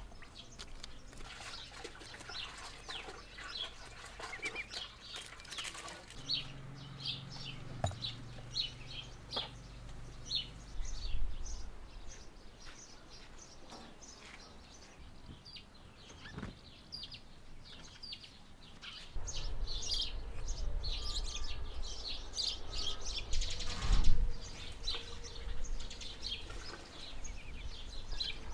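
Birds chirping: many short, high chirps through the whole stretch. A low steady hum comes in after about six seconds and fades out a few seconds later, and a low rumble runs through the last third, with one loud thump near the end.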